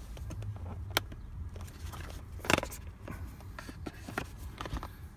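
Hands handling a smartphone box and its contents: light scraping and small ticks, with a sharp click about a second in and a louder knock about two and a half seconds in.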